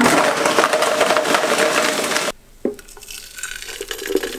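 Ninja Professional 1100-watt countertop blender running loud and steady, blending a protein shake, and cutting off suddenly after about two seconds. Then quieter sounds of the shake being poured from the blender jug into a glass jar.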